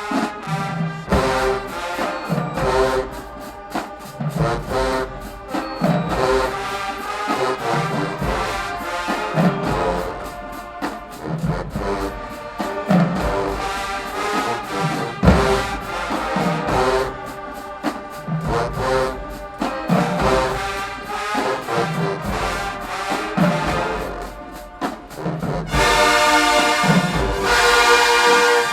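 Marching band playing: trombones and trumpets over a steady beat of low drum hits, swelling to a loud, full held brass chord near the end.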